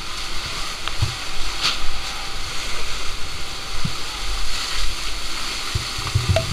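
Fire hose nozzle spraying a jet of water, a steady hiss with water spattering onto the walls and debris, and a few short knocks.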